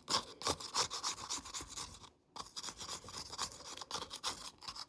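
Scratchy scraping strokes, several a second and uneven, with a short pause about two seconds in: a stuck-on mixture being scraped off a surface.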